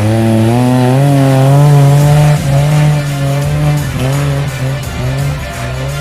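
Off-road 4x4's engine revving under throttle. Its pitch rises at the start, then wavers up and down as the throttle is worked.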